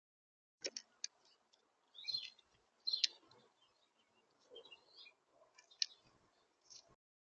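Small birds chirping in short high calls, mixed with several sharp clicks. The sound starts and cuts off suddenly.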